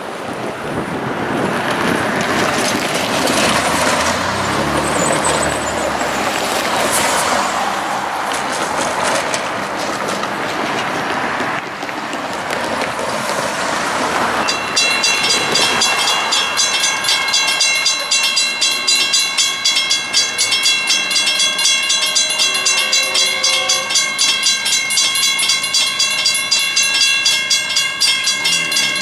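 A train passes close by: a rush of wheel-on-rail noise that builds over the first couple of seconds and dies away about halfway through. Then a railway bell starts ringing steadily, about two strokes a second.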